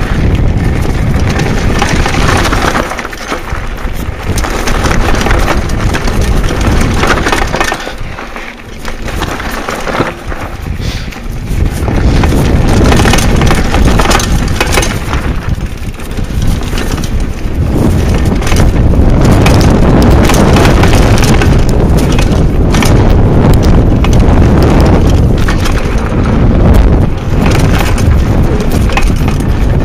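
Mountain bike ridden over a rough dirt and gravel trail, heard from the rider's camera: continuous tyre and wind noise with the rattle and knocks of the bike over bumps. It grows louder and steadier about twelve seconds in.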